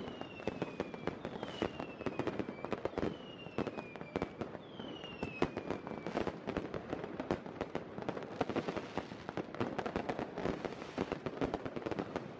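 Many consumer fireworks and rockets going off at once: a dense, unbroken crackle of bangs and pops, with several whistles falling in pitch in the first half.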